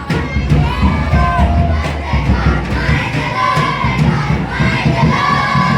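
A crowd of children chanting and shouting together, many voices at once, with music underneath.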